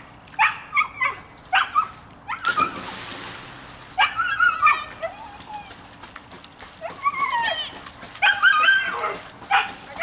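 Dog yipping and whining in short, high-pitched calls, over and over. About two and a half seconds in there is a splash lasting about a second as a dog jumps off the dock into the pool.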